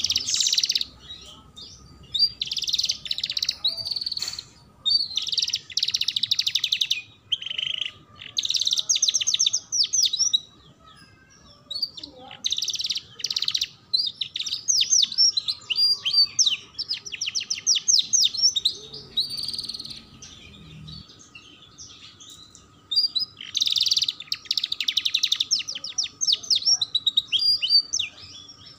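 Yellow domestic canary singing: phrases of rapid, high trills and chirps, broken by short pauses, with two longer breaks about a third and two-thirds of the way through.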